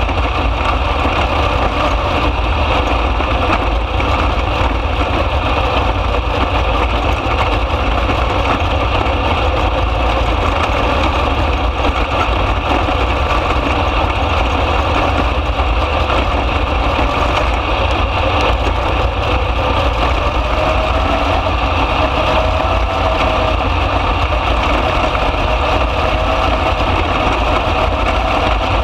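305 sprint car's V8 engine running steadily at speed on a dirt track, heard from inside the open cockpit as a constant, loud din of engine and wind.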